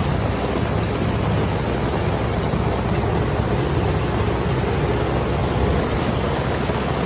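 A steady, even rushing noise, heaviest in the low end, with no distinct strokes or pitch.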